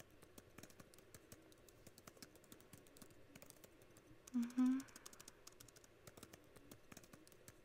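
Computer keyboard typing: a quick, continuous patter of keystrokes. A short hummed voice sound cuts in about four and a half seconds in.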